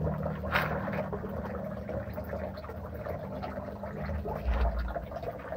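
Koi slurping and splashing at the pond surface as they feed, a watery gurgling with one sharper sound about half a second in and a brief low rumble near the end.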